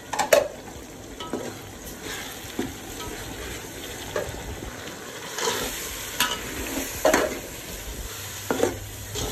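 Metal ladle stirring and scraping a masala of spices, paste, onions and tomatoes being sautéed in hot oil in a metal pot: a low sizzle under irregular scrapes and knocks of the ladle against the pot.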